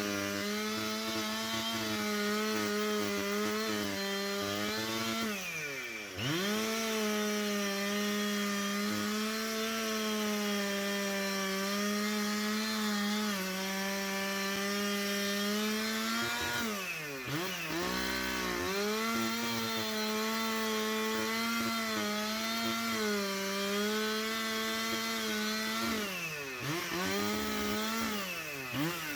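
Husqvarna 371 XP two-stroke chainsaw held at high revs while cutting through a tree trunk. The engine note drops and swings back up three times, about five seconds in, in the middle, and near the end.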